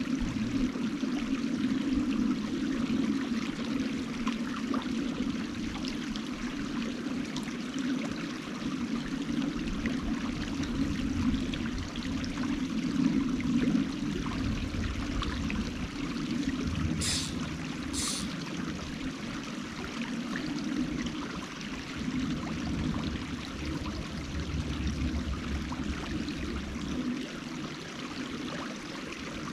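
A small mountain creek running steadily over rocks, a continuous rushing and trickling of water.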